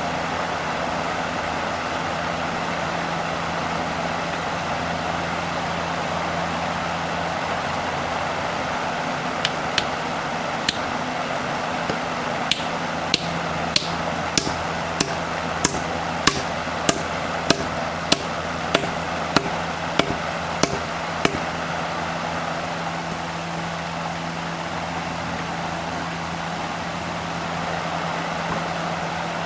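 A steady mechanical hum throughout. In the middle of it comes a run of about eighteen sharp, evenly spaced hammer taps on wood, roughly three every two seconds, which start about ten seconds in and stop about eleven seconds later.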